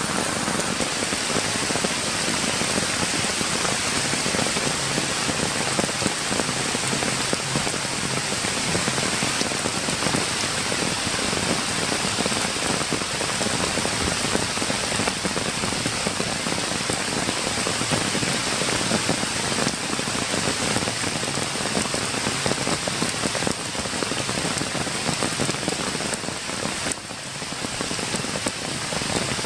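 Steady rain falling on wet grass, leaves and puddled ground, its level dipping briefly near the end.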